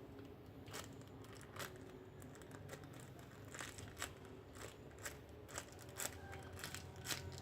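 Faint, irregular crinkling and small crackles of a homemade squishy being handled and squeezed.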